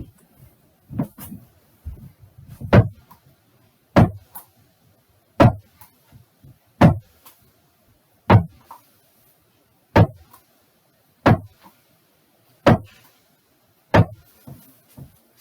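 A slow, even series of about ten heavy thuds or knocks, roughly one every second and a half.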